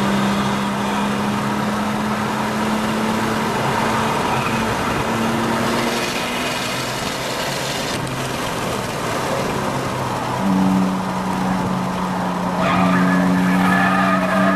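Car engine running at steady revs as the car laps a racetrack, over road noise. The engine note fades back in the middle, returns stronger about ten seconds in and then climbs slowly in pitch.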